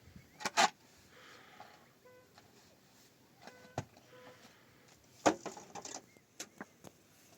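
A few scattered sharp knocks and clatters, the loudest about half a second in and just after five seconds, with faint brief squeaks between them.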